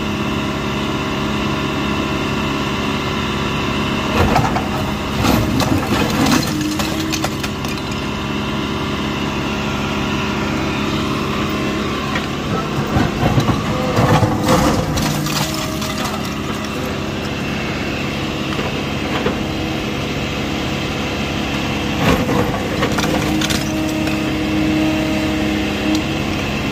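John Deere backhoe loader's diesel engine running steadily while the bucket scrapes at an old brick wall, with clattering bursts of bricks knocked loose and falling onto the rubble about four seconds in, around the middle, and again near the end.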